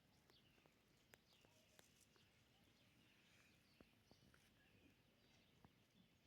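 Near silence, with faint bird chirps and a few soft clicks.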